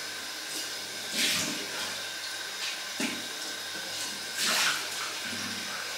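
Bathroom tap running into a sink, with two louder splashes, about a second in and about four and a half seconds in.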